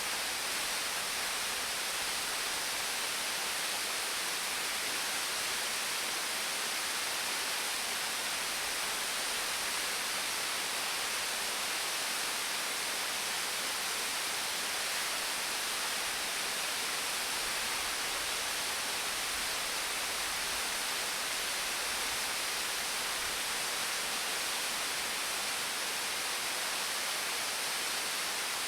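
Partially frozen waterfall: falling water in a steady, even rush, mostly a high hiss with little low rumble.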